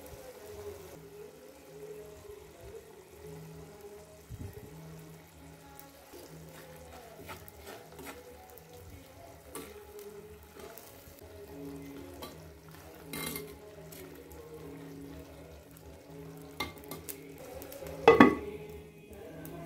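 Egg curry sizzling in a clay pot, with a metal spoon scraping and clinking against the pot's sides. About eighteen seconds in, the clay lid clatters down onto the pot, the loudest sound.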